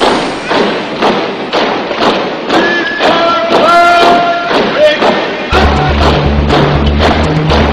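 Background music: a steady percussive beat of about two hits a second, with a few held sung notes in the middle and a heavy bass line coming back in about five and a half seconds in.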